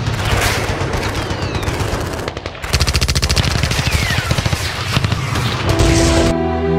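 Rapid machine-gun fire, a dense run of shots that gets heavier about three seconds in. Music with held notes comes in near the end.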